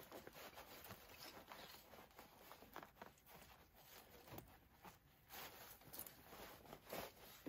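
Faint rustling and light ticks of fabric and tear-away stabiliser being handled as an embroidery hoop is slid into a project bag.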